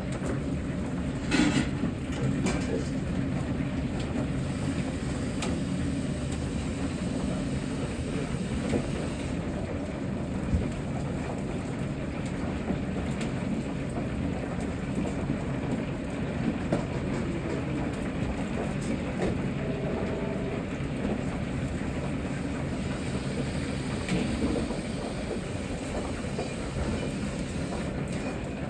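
Steady low rumble of a commercial wok range and kitchen ventilation, with occasional sharp metal clinks of a ladle and wire strainers against steel pots and woks, the loudest about a second and a half in.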